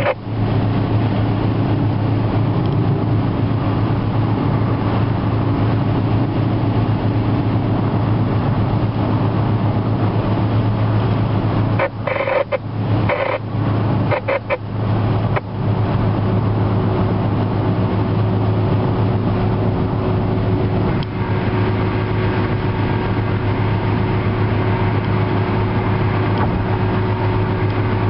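Steady road and engine noise inside a car cruising at highway speed, with a low drone underneath. A few short breaks interrupt the noise about twelve to fifteen seconds in.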